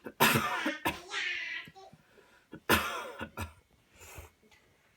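A person coughing hard and deliberately, a series of harsh forced coughs after a deep breath; the loudest bursts come just at the start and again near the middle, with smaller coughs between.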